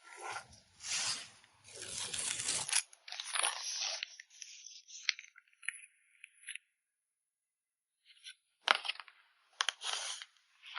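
Rustling and crinkling of packing materials being handled while photocards are packed, for about four seconds. Then scattered light clicks and taps, a short pause, and a few sharp taps near the end.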